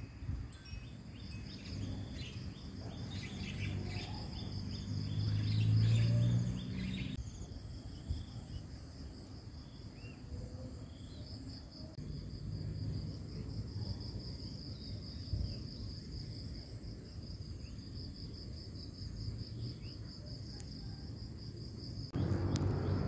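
Rural garden ambience: an insect trilling steadily in a high, finely pulsing tone, easing off for a few seconds partway through, with a few faint bird chirps. A low rumble swells briefly about five seconds in.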